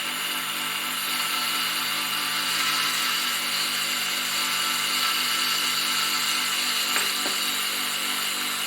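Proxxon mini milling machine running, its small spindle motor whining steadily.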